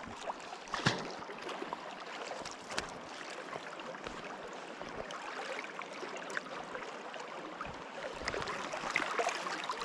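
River water rushing steadily past, with a couple of light knocks, one about a second in.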